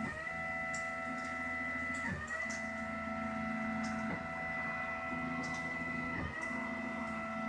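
Da Vinci 3D printer's stepper motors whining steadily as the print head moves, the whine dipping briefly about two seconds in and again about six seconds in.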